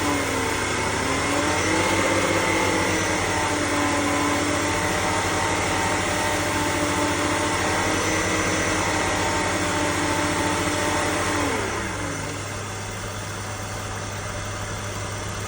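BMW E60 530i's M54B30 straight-six engine held at raised revs with a steady high-pitched whine over the engine note, the whine the owner hears between 1500 and 2000 RPM. The revs swing up and down briefly at the start, hold steady, then fall back to idle about twelve seconds in, where the whine fades.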